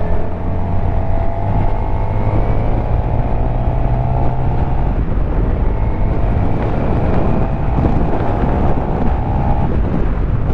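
Suzuki GSX-R750's inline-four engine accelerating, its note rising through one gear, dropping at a shift about halfway through, then rising again through the next gear. Wind noise buffets the helmet microphone throughout.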